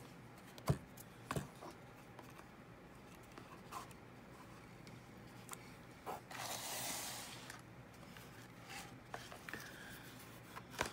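A handmade cardstock mini bookshelf box being handled and turned over in the hands: two sharp taps near the start, scattered light ticks, and a longer rustling rub of paper against skin about six seconds in.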